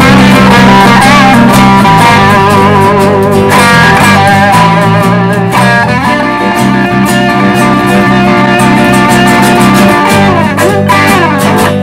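Blues-rock band playing an instrumental break: a lead guitar solos with bent, wavering notes over a steady bass and rhythm guitar.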